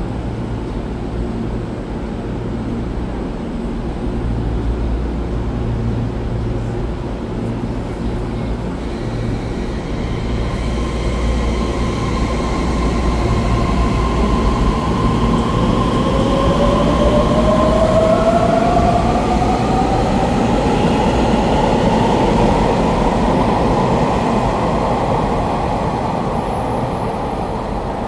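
Taiwan Railway EMU3000 electric multiple unit pulling away from the platform and gathering speed, wheels rumbling on the rails. From about halfway through, its traction motors give a whine that climbs in pitch as the train accelerates, with a thin high tone joining near the end.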